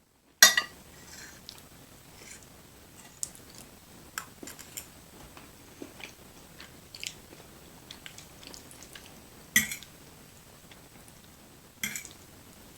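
Close-up chewing of creamy chicken fettuccine Alfredo: wet mouth smacks and clicks. A loud sudden burst comes about half a second in, and two more come near the end.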